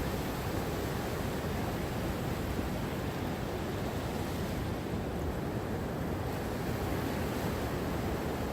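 Gentle ocean waves: a steady, even wash of surf with no single break standing out.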